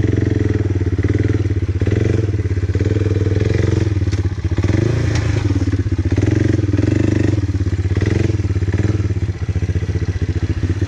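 Quad bike (ATV) engine running steadily under throttle, its pitch rising and falling a little as the rider works the gas.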